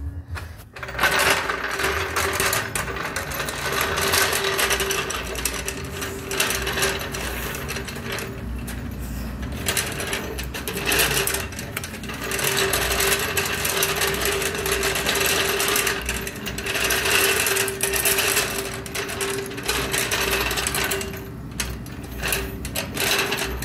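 A scissor jack being run up under a ride-on mower to lift it: a steady mechanical whir with rattling, stopping briefly a few times.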